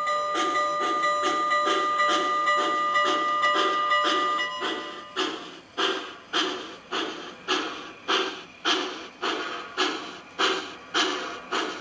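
Digital steam sound from an MTH HO-scale Southern Pacific GS-4 4-8-4 model locomotive pulling away: the bell rings over the exhaust chuffs and stops about four and a half seconds in. Steady, sharply separated chuffs follow at a little under two a second.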